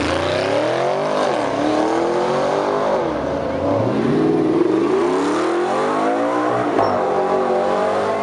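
Sports car engine accelerating hard, its pitch climbing and then dropping back at each of several gear changes.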